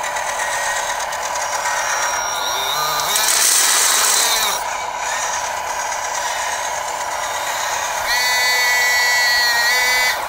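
Hydraulic pump and electric motors of a radio-controlled Caterpillar 325D scale excavator whining steadily as the boom, arm and bucket move and the upper body swings. A louder hissing rush comes about three seconds in and lasts a second and a half, and a higher whine of several tones runs from about eight seconds to near the end.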